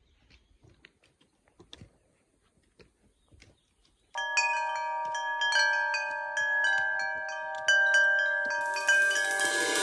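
Near silence with a few faint ticks, then about four seconds in, background music starts suddenly: a song intro of ringing, wind-chime-like bell tones struck in a repeating pattern, with a high shimmer building near the end.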